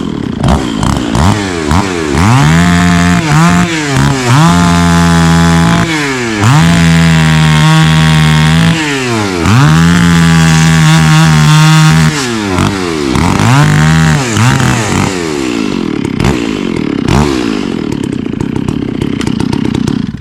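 Two-stroke chainsaw cutting into a tree, revved in quick throttle blips and held at full throttle for stretches of about two seconds, four times in the middle. The sound cuts off suddenly at the end.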